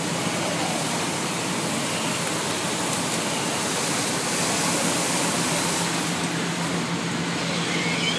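Steady rushing noise with a constant low hum underneath, from fire apparatus running at a fire scene.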